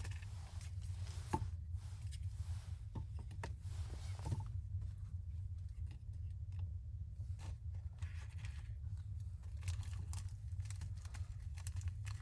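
Jars, bottles and a cardboard packet being set down and moved about on a wooden plank shelf: scattered light knocks and clinks with some rustling, the sharpest knock about a second and a half in, over a steady low hum.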